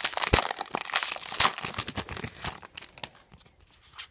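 Foil wrapper of a baseball card pack tearing and crinkling as it is ripped open by hand, dense and crackly for about two and a half seconds, then thinning to a few soft rustles.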